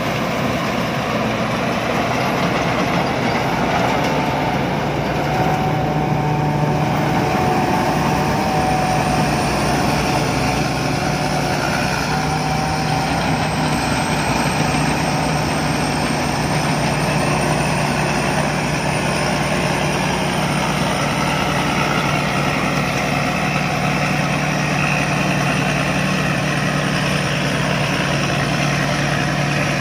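Rice combine harvester running steadily at work: a constant engine and machinery drone with a low steady hum.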